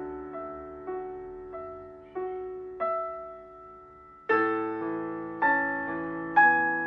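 Solo piano playing a slow, gentle melody, one note or chord at a time, each left to fade. A little past halfway it turns louder and fuller, with low bass notes under the chords.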